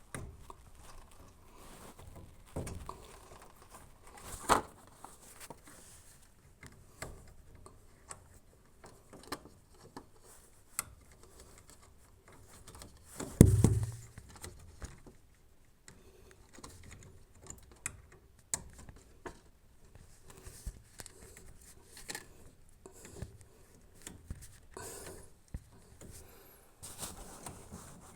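Scattered clicks, taps and knocks of hands working on plastic washing-machine parts during a drain pump replacement, with one heavier thump about thirteen seconds in.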